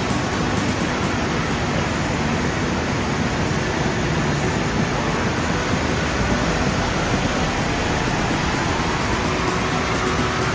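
Steady rushing of water from a surf simulator, its pumped sheet of water streaming up the sloped riding surface.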